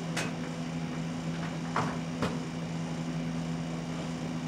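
Steady low room hum from running equipment, with three light knocks: one right at the start and two close together about two seconds in.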